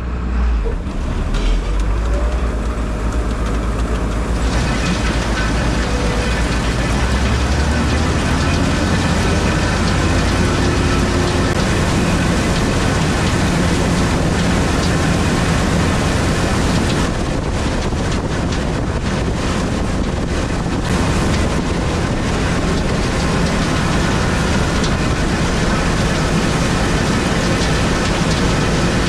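New Holland TR89 combine harvester running steadily while harvesting, a low engine drone under the wide rushing noise of the threshing machinery, which grows fuller about four seconds in.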